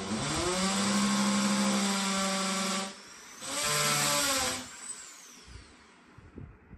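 Electric hand drill boring into plywood: the motor runs steadily for about three seconds, stops, runs again for about a second, then spins down with a falling whine.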